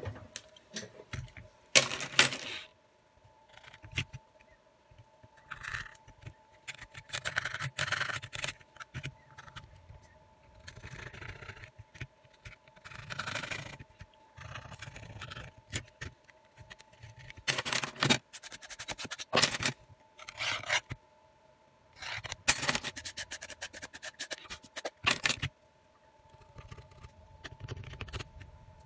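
A metal-tipped pry tool scraping and clicking against a phone's metal mid-frame in irregular bursts, with handling knocks of the frame on a silicone mat. A faint steady hum sits underneath.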